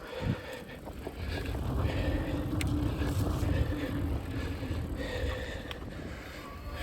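Electric mountain bike being ridden on a dirt trail: a steady low rumble of tyres and trail with rattles and clicks from the bike, and a faint steady hum in the middle.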